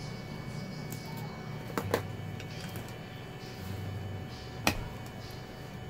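Wiring connectors and cables being handled and plugged into a TV mainboard, with faint ticks and two sharp clicks, one about two seconds in and one near the end, over a low background hum.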